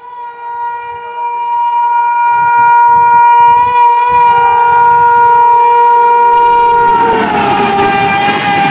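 Horn of an Indian Railways WAP-7 electric locomotive sounding one long steady blast as it approaches at high speed, growing louder. About seven seconds in the locomotive passes and the horn's pitch drops, and the rush and clatter of the passing coaches takes over.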